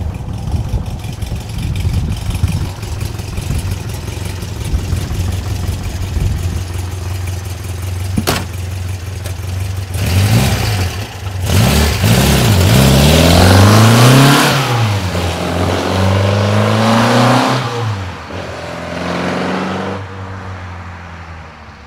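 1966 VW Beetle with a 2275 cc air-cooled flat-four and a Merge Comp exhaust, idling steadily for about ten seconds, with one sharp click near the middle. The engine then revs up and down several times as the car pulls away, loudest about two-thirds of the way in, and fades out near the end as it drives off.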